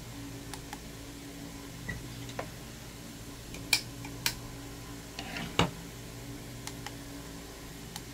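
A handful of sharp plastic clicks from the camping lantern being handled and its mode button pressed, the loudest three close together in the middle, over a steady low hum.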